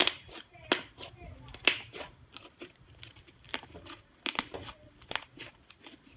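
Butter slime being squeezed and stretched by hand, giving a run of short sharp pops and crackles, the loudest about five irregularly spaced across a few seconds.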